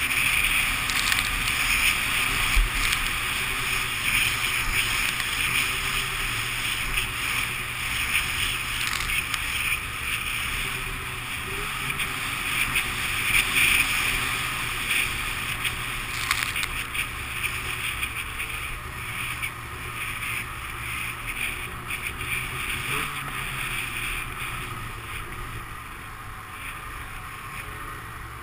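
Snowmobile running as it rides down a snowy slope, with a steady hiss of snow and wind over the engine, getting gradually quieter.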